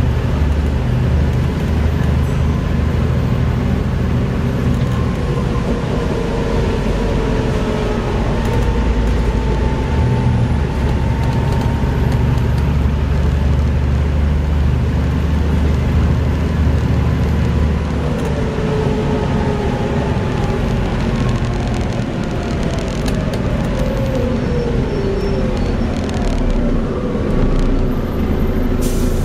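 Volvo B7TL bus running under way, its engine drone strong and low with a whine that rises and falls in pitch as it works through the ZF automatic gearbox's gears. The drone eases about two-thirds of the way in, and there are a few sharp clicks near the end.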